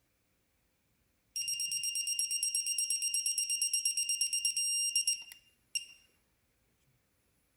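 Digital torque wrench beeping rapidly as a camshaft cap bolt is tightened toward its 13 Nm setting. The beeping runs together into a steady tone and stops, the sign that the set torque has been reached. A click and one short beep follow.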